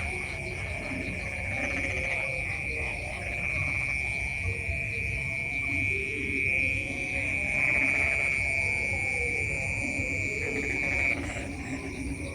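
Night insect chorus: one insect's steady, high-pitched trill that cuts off abruptly about eleven seconds in, over lower frog-like calls from the field.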